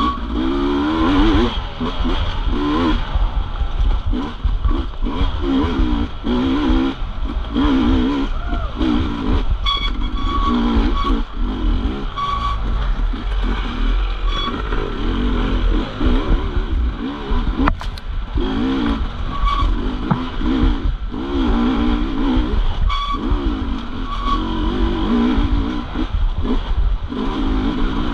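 250 cc racing motorcycle engine revving up and down over and over as it is ridden hard through the course, with a steady low rumble underneath.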